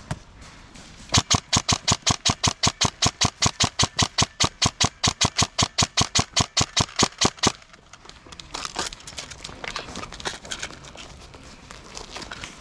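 Airsoft gun firing a long full-auto burst of about six or seven shots a second for some six seconds, then stopping abruptly. After it, fainter scattered airsoft shots.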